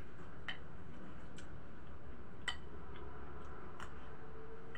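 Cutlery tapping and scraping on a plate while eating: about five light, separate clicks spread out, the sharpest a little past the middle, over a steady low background noise.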